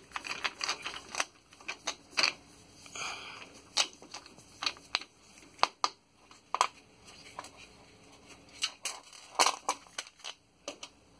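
Hand screwdriver backing a screw out of the steel back panel of a desktop computer case at the power supply: irregular sharp metal clicks and short scrapes as the bit and screw turn.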